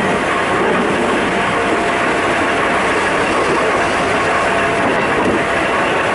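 Running noise of a Keikyu 800 series electric train, heard inside the car above the bogie: a steady rumble of wheels on rail with rail-joint clatter.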